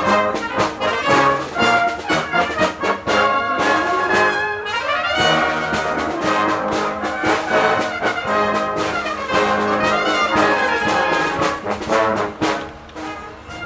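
Brass band playing a rock arrangement, full ensemble with a driving rhythm of sharp hits and a rising swoop about four seconds in.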